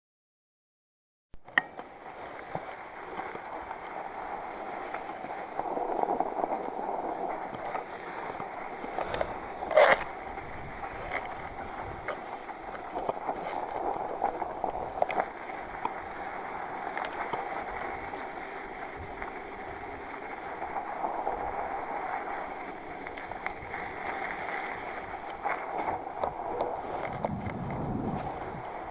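Northrock XC00 fat-tire bike riding over snow, heard from a handlebar-mounted camera: steady noise of the wide tyres on snow with scattered clicks and rattles, beginning about a second and a half in. One sharp knock stands out about ten seconds in.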